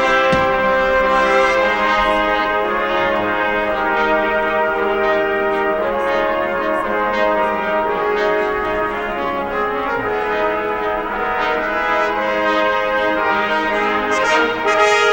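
Instrumental music of held chords in a brass tone, several notes sounding together and changing every second or two.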